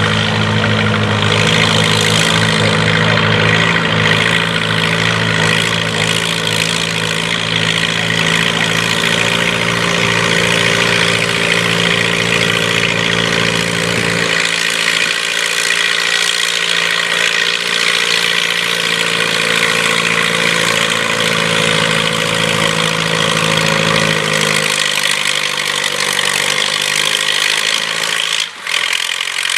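Farm-class pulling tractor's engine running steadily. Its sound changes abruptly about fourteen and again about twenty-five seconds in.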